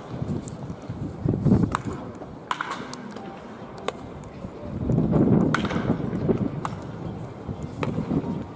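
Scattered sharp cracks of baseball bats hitting balls in tee batting, at irregular intervals, over the voices of onlookers, which are loudest about five seconds in.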